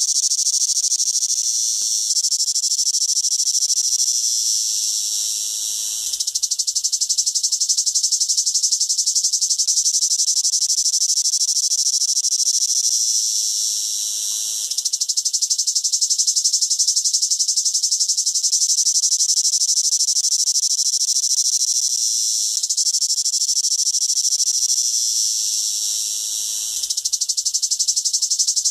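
A cicada singing: a loud, continuous high-pitched buzz made of very fast pulses. Three times the song sags a little and then swells back up sharply.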